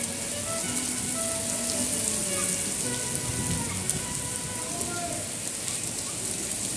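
Steady rain falling on the street and surfaces, a continuous even hiss.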